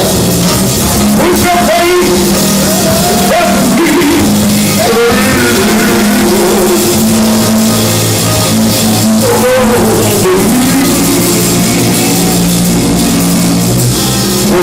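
Loud live church praise-band music with singing voices over sustained low bass notes.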